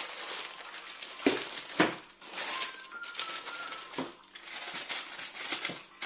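Baking parchment crinkling and rustling under the hands, and a metal baking tray laid down on it with two loud knocks about a second and a half in, followed later by a few lighter knocks as it is handled for turning the sponge sheet over.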